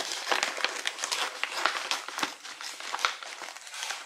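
Cat food bag crinkling as it is cut open across the top with scissors: a dense, irregular run of crackles and rustles.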